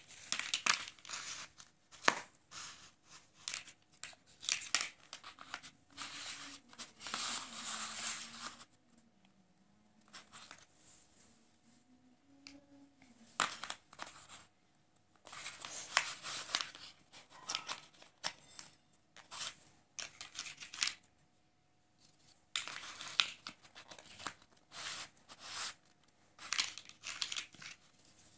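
Plastic jigsaw pieces being handled on a sheet of paper. Irregular clicks and clacks as pieces are set down and knock together, with stretches of paper rustling and scraping as they are slid into place.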